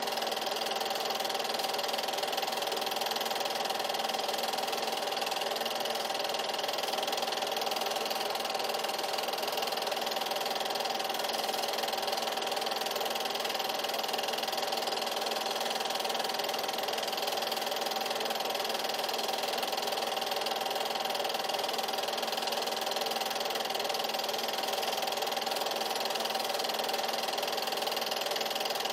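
8mm film projector running: a steady mechanical whir and clatter that does not change.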